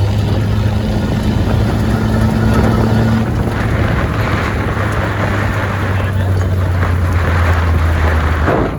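A motor vehicle's engine running steadily, a low hum under heavy rushing wind noise; the hum eases off near the end.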